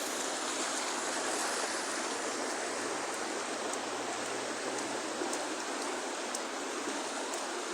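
Floodwater rushing steadily across a road, an even unbroken hiss of flowing water.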